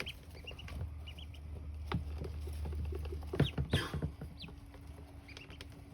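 Ducklings peeping in short, high cheeps that come in little clusters, with a few sharp knocks and patters in between.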